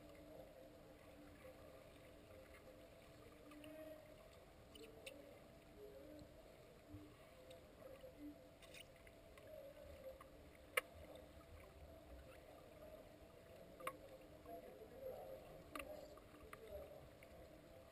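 Faint, muffled underwater ambience in a swimming pool, picked up by a submerged camera: a steady low hum with a few sharp clicks, the loudest about two-thirds of the way through.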